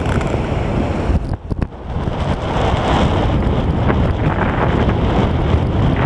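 Wind buffeting the camera's microphone on an open beach, a loud low rumble that eases briefly about a second and a half in, with the wash of surf beneath it.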